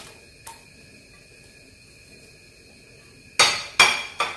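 Glass food-storage container set down among other glass dishes: three sharp glass-on-glass clinks near the end, after a quiet stretch.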